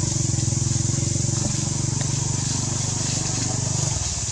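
A small engine running steadily, low in pitch with a fast, even pulse, dipping briefly near the end. A steady high hiss lies behind it.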